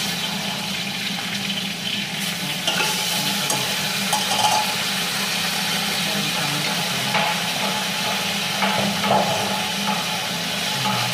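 Chicken pieces sizzling as they sauté in a pot with garlic, a steady frying hiss, with a few short knocks and scrapes of a utensil stirring the pot.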